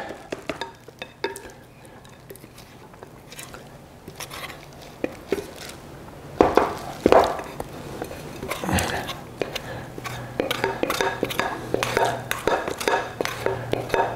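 A spoon scraping and knocking against a glass mixing bowl as shredded chicken is scraped out into a slow cooker: scattered clinks and scrapes, a couple of louder knocks about halfway, and busier clinking in the second half.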